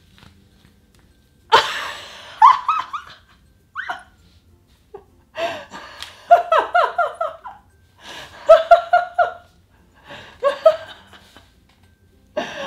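A woman laughing in several separate bursts of quick, repeated pulses, the first starting sharply about a second and a half in.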